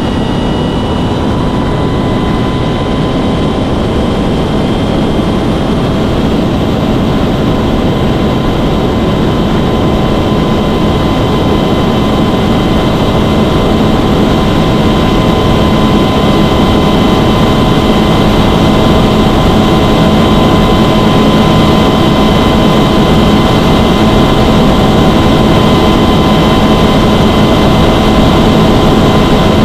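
Mercury Racing 450R supercharged V8 outboard running at wide-open throttle as the bass boat accelerates toward top speed, about 75 to 109 mph at 4,700 to 6,300 rpm. A steady, loud engine note that grows slightly louder through the first half and then holds.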